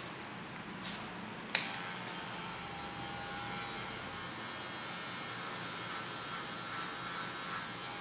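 Electric hair clipper switched on with a sharp click about one and a half seconds in, then running with a steady whir while lining the hair around the ear.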